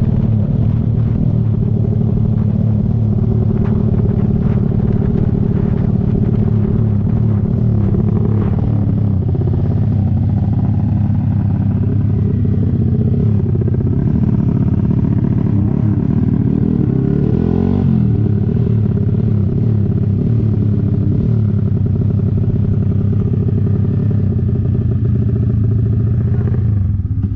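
Motorcycle engine running steadily under way, its pitch sliding up and down a few times in the middle as the revs change.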